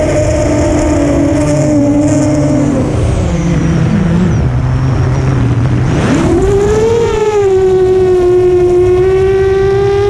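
FPV quadcopter's brushless motors and propellers whining, the pitch falling as the throttle is eased. About six seconds in the throttle is punched: the whine sweeps sharply up with a brief rush of noise, then holds at a steady higher pitch.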